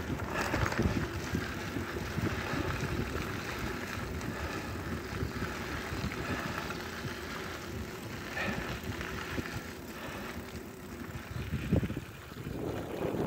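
Wind buffeting the microphone over the rumble of bicycle tyres rolling on a packed dirt trail. Small knocks and rattles come from the loaded bike, with a couple of sharper bumps near the end.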